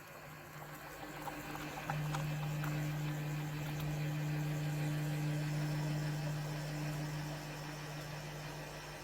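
Tassimo pod coffee machine running with a steady hum, which grows louder about two seconds in and eases off near the end.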